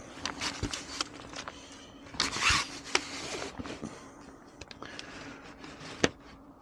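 Handling noise from a board of taped lure rigs: rustling, scraping and scattered clicks, with a louder rustle about two seconds in and a sharp click near the end, over a faint steady hum.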